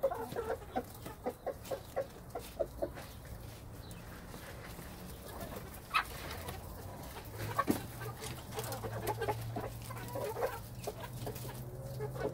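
Poultry clucking: a quick run of soft, low clucks in the first few seconds, then scattered calls later. A low steady hum comes in about seven seconds in.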